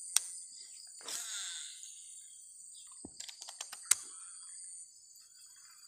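A cast with a baitcasting rod: a sharp click, then a swish as the rod swings and line pays out about a second in, followed by a quick run of clicks from the reel being engaged and cranked. A steady high hiss sits behind and stops near the end.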